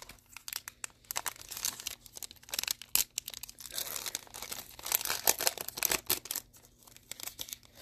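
Foil wrapper of a trading-card pack crinkling and tearing as it is handled and ripped open: a run of sharp crackles and rips, the loudest about three seconds in.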